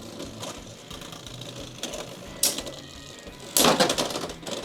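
Two Beyblade X spinning tops battling in a plastic stadium: scattered sharp clacks as they strike each other, then a rapid, loudest flurry of collisions about three and a half seconds in.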